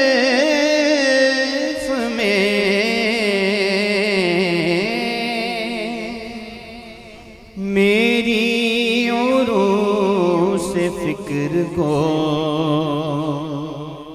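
A man singing a naat into a microphone, drawing each phrase out at length with a wavering, ornamented melody. One phrase fades away about six seconds in, and a new one starts sharply about a second and a half later.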